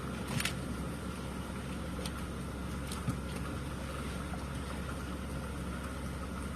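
Steady low rumble of a car running, with a couple of faint clicks about half a second and three seconds in.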